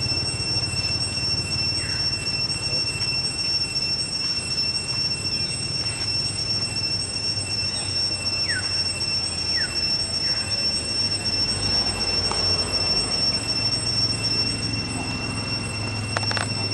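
Steady, unbroken high-pitched insect drone, typical of tropical forest cicadas, over a low hum, with a few short falling chirps.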